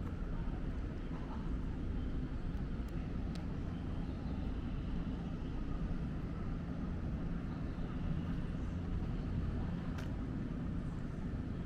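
Steady low rumble of railway-station ambience, with a single faint click about ten seconds in.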